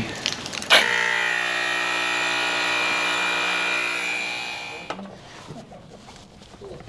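Portable electric tire inflator running steadily for about four seconds, pumping air into a plugged motorcycle rear tire toward 42 psi. It switches on with a click about a second in and stops about five seconds in.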